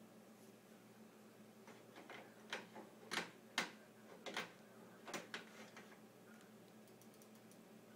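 A run of about ten irregular sharp clicks and ticks over roughly four seconds, loudest near the middle, over a steady low hum.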